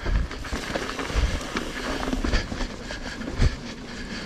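Mountain bike rolling along a dirt singletrack: tyres on loose ground, with the chain and frame rattling over bumps. There is a sharper knock about three and a half seconds in.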